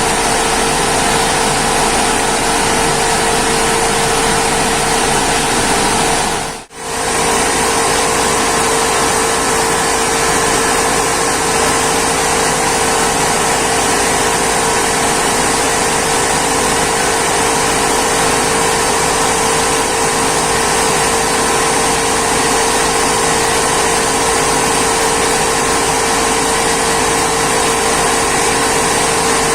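Rice mill machinery running with a steady, loud mechanical drone and a constant hum. The sound drops out for a moment about seven seconds in, then resumes unchanged.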